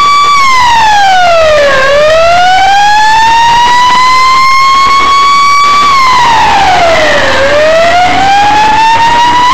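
Fire engine siren wailing, as on an emergency response: its loud tone drops quickly by about an octave, then climbs back slowly, and does this twice.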